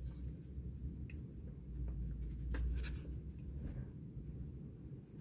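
A slip of paper being unfolded and handled: a few soft, brief rustles and crinkles over a low steady hum.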